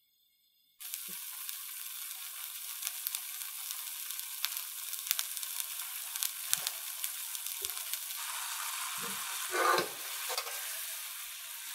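Sake and mirin boiling hard in a frying pan, cooking off the alcohol: a steady sizzling hiss with many small crackling pops that starts abruptly about a second in. About ten seconds in, the pan is tilted and the bubbling liquid swirls, briefly louder.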